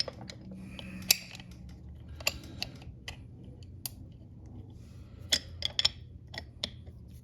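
About a dozen light, irregular clicks and clacks of tools and parts being handled, over a faint low hum.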